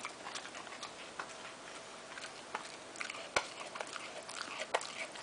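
A pet chewing on a piece of tissue: a string of irregular small clicks and mouth noises, with one sharper click a little past the middle.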